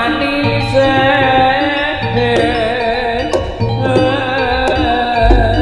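Live Javanese jaranan gamelan playing: metallophone notes and drum strokes under a wavering melody line, with a deep gong stroke ringing on near the end.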